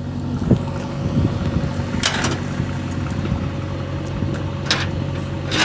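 A heavy machine's diesel engine idles steadily, with a few sharp metallic clinks as a steel lifting chain is handled.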